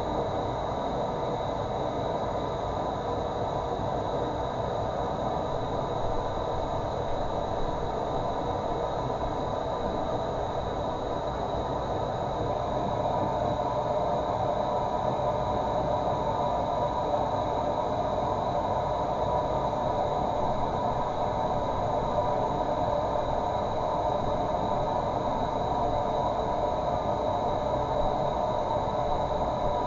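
Running water, a steady unbroken rush.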